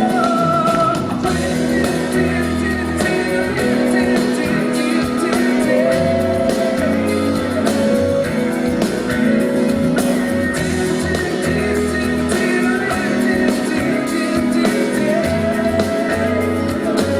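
Live band music led by guitar, playing an instrumental passage of a Brazilian pop song.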